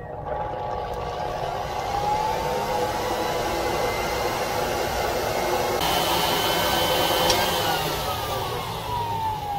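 Electric blower running steadily, forcing air into a coal forge fire that is heating a 5160 leaf-spring blade. The motor's whine rises in pitch in the first two seconds and sinks again near the end, with a brighter hiss of air for about a second and a half past the middle.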